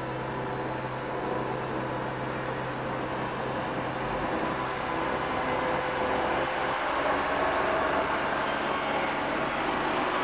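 Farm tractor's diesel engine running as the tractor drives across cobblestones, growing louder as it approaches and passes close by near the end.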